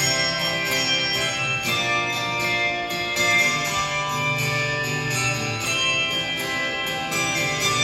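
Handbell choir playing: many handbells struck in overlapping chords, each note ringing on as new ones are struck, over sustained low tones.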